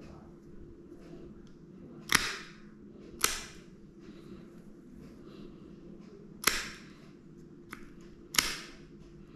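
Dog nail clippers snapping through the dog's claws: four sharp clips, spaced unevenly, the first about two seconds in, with a fainter click before the last one.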